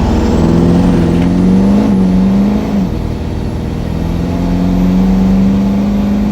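Duramax turbodiesel pickup engine running under throttle, with a high turbo whistle that climbs over the first few seconds and then holds.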